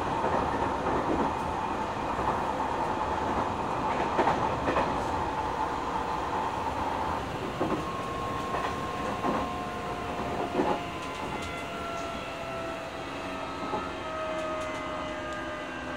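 Running sound inside a Nishitetsu 9000 series electric train car, which has a Toshiba hybrid-SiC IGBT-VVVF inverter and totally enclosed fan-cooled induction motors: a steady rumble of wheels on rail with a few knocks as the wheels cross rail joints. Over it the motor and inverter whine holds steady, then slowly falls in pitch in the second half as the train slows.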